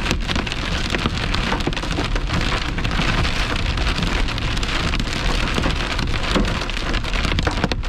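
Heavy rain hitting a moving vehicle's roof and windshield, heard from inside the cabin as a dense, steady hiss full of small drop impacts, over a low road and engine rumble.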